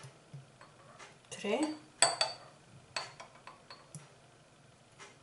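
Metal spoon clinking against a small glass jar while spoonfuls of olive oil are measured in: a few sharp clinks about a second apart, the loudest about two seconds in.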